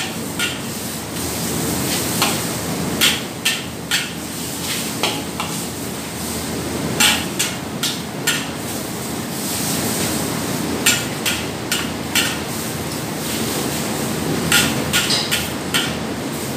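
A long metal spatula clanking and scraping against a steel wok as chopped squid is stir-fried. There are irregular sharp strikes, a dozen or so, over a steady hiss of frying and the gas wok burner.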